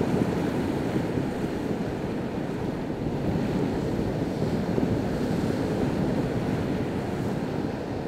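Ocean surf breaking and washing on the shore: a steady, deep rushing of waves.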